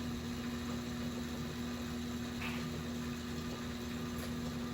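Steady low machine hum with a constant tone, from a motor running in the workshop.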